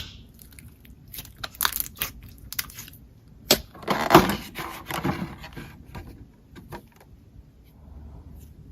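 Slime being squeezed and worked by hand, giving a run of sharp crackling clicks and pops, with a denser crunching stretch about halfway through; it dies down near the end.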